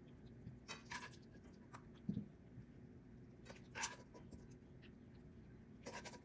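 A spatula scrapes and clinks faintly against a frying pan and a ceramic plate while fried potatoes and meat are served. There are three brief scrapes, about one, four and six seconds in, and a soft thud of food landing on the plate about two seconds in.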